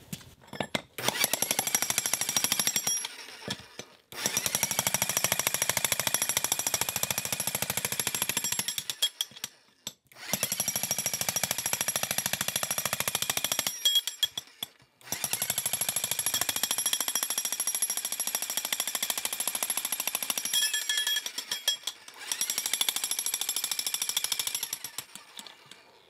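Bosch 60-pound electric jackhammer breaking up a concrete slab. It runs as a rapid, steady stream of blows in several long bursts, with short pauses between them.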